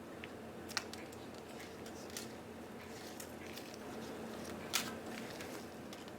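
Faint, scattered light clicks of small watch parts and tweezers being handled on the bench, with two slightly sharper clicks about a second in and about two-thirds through, over a steady low hum.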